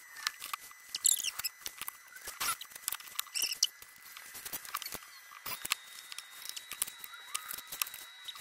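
Clicks, knocks and rustling from a cordless drill and wooden planks being handled and set down on a cluttered workbench, with a few short high squeaks.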